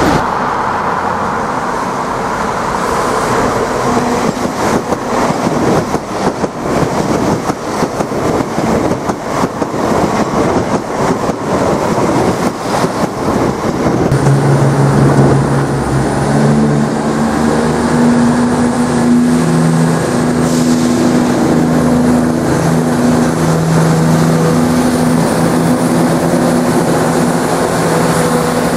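A diesel multiple unit passes at speed with a rush of wheel and rail clatter. From about halfway this gives way to the steady drone of a diesel unit's engines.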